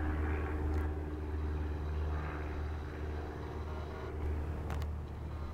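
Propeller airplane engine droning steadily at a distance, with a few steady tones that fade about four seconds in. It has the sound of a turboprop like a Cessna Caravan's.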